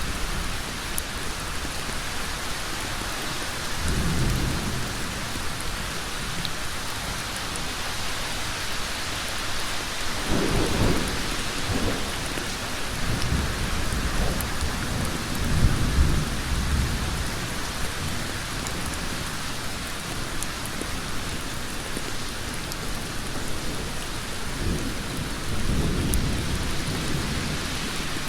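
Heavy rain falling on a road: a steady, dense hiss. Deep low rumbles swell up under it several times, the strongest about halfway through.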